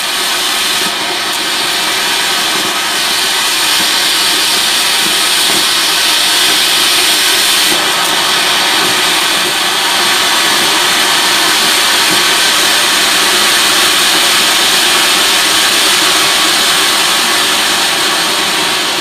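Gudiya-brand Jasmine matka flowerpot, a ground fountain firework in a clay pot, burning with a loud, steady hiss of spraying sparks.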